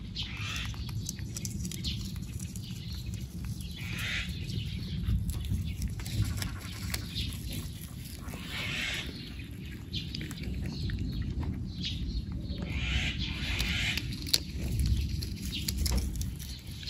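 Baby rabbits nibbling at a leafy apricot branch, with irregular patches of leaf and dry-grass rustling and small clicks over a steady low rumble.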